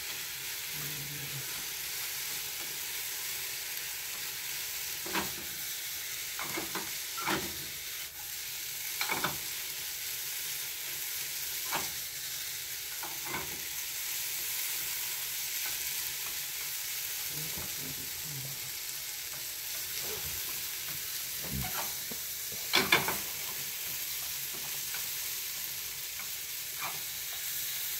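Vegetables sizzling steadily as they stir-fry in olive oil in a frying pan. A utensil stirring them gives occasional short scrapes and knocks, with a louder pair late on.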